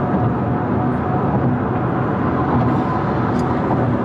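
Steady road noise heard inside a moving car's cabin, with a faint steady whine through it.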